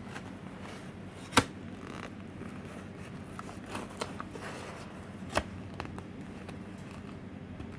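Handling of a thin, painted Lexan body shell: a few sharp plastic clicks and crackles, the loudest about a second and a half in, over a low steady hum.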